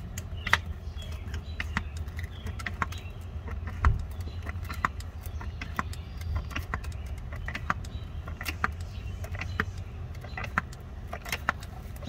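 Hand pump on a transmission fluid bottle being worked stroke by stroke, its plunger clicking and clacking irregularly as it pushes fluid through a tube into a manual gearbox's fill hole, with a louder knock about four seconds in, over a steady low hum.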